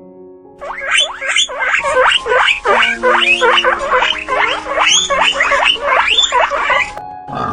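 An animal giving a fast, dense run of short, high squeals, each sliding down in pitch, that starts about half a second in and stops shortly before the end, over background music.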